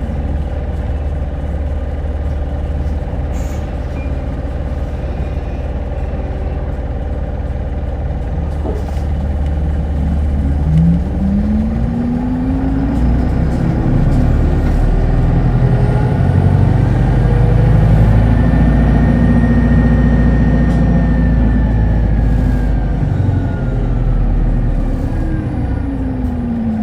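Hino Blue Ribbon hybrid city bus heard from on board. It runs with a steady low rumble at first, then pulls away about ten seconds in, with its drivetrain pitch and a higher whine rising as it speeds up. Near the end the pitch falls away as it eases off.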